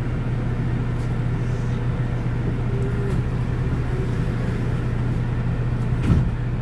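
City bus standing at a stop, heard from inside the passenger cabin: a steady low hum. A short thump comes about six seconds in.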